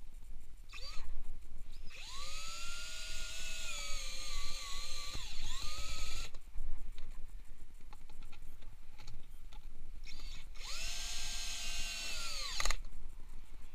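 DeWalt cordless drill/driver driving screws into plastic bodywork: a couple of short blips, then a whine that climbs as the motor spins up and runs about four seconds with a brief dip, stops sharply, and comes again for about two seconds before cutting off.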